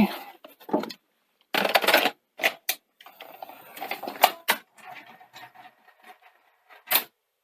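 Sony SL-C6 Betamax video recorder's tape mechanism, newly fitted with fresh belts and idler tyres, clicking and clunking through its operation, with a faint running whir between the clicks.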